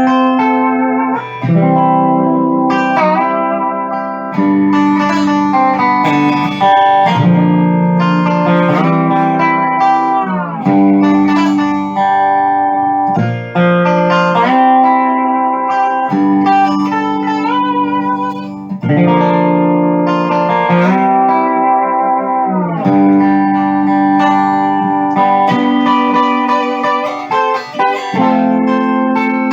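Steel guitar's G-tuned neck played solo: sustained plucked chords with smooth gliding bends between them.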